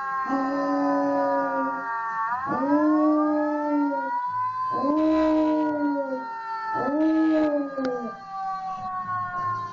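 Seven-month-old Newfoundland puppy howling four times in a row, each howl held for one to two seconds, along with a siren whose pitch rises and then falls slowly.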